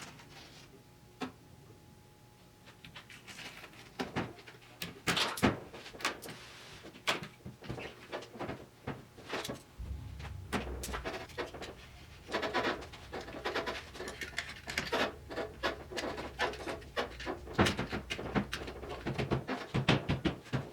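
Window glass being worked out of a 1972 Triumph GT6's rear hatch by hand: an irregular run of clicks, knocks and scrapes that begins about four seconds in.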